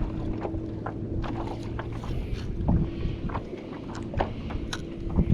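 Wind rumbling on the microphone and water slapping against the hull of a pedal kayak, with scattered light clicks and knocks and a faint steady hum.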